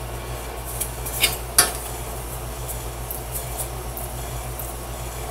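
Thin sawn wooden marquetry pieces clicking against each other as they are handled and fitted together by hand, two sharp clicks a little over a second in and a few faint ticks after, over a steady low hum.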